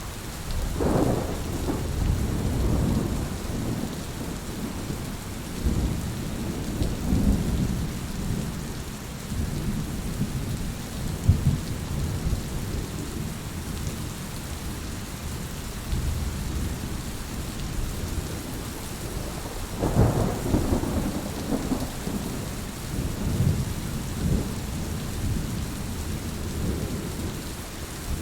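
Heavy rain falling steadily, with rolling thunder rumbling underneath that swells up about a second in and again about twenty seconds in.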